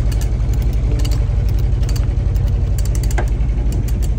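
A boat's engine running steadily with an even low throb.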